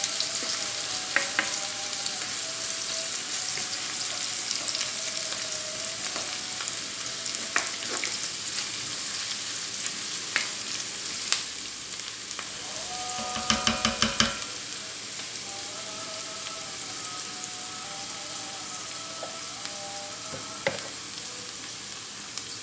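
Diced onions sizzling as they sauté in oil in a frying pan, with a steady hiss and the spatula's occasional scrapes and clicks against the pan. About halfway through, a quick run of five or six ringing knocks.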